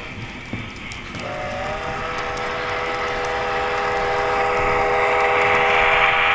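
Model train sounding one long multi-note whistle from about a second in, getting louder as the train comes close, over the rumble of its wheels on the track.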